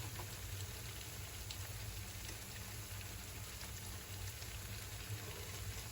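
Wheat flour mixture frying in hot oil, a faint steady sizzle and crackle.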